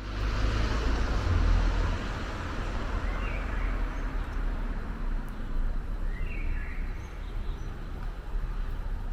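Outdoor city ambience: a steady low traffic rumble and hum, with a few short bird calls about three, six and eight seconds in.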